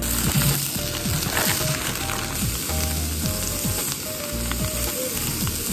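Wieners sizzling in a hot frying pan on a portable gas stove. The steady hiss starts as they are tipped into the pan.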